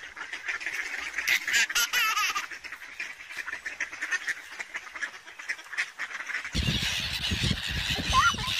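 Mallard ducks quacking and calling close by. About six and a half seconds in it changes to Canada geese honking on a lake, over a low rumble.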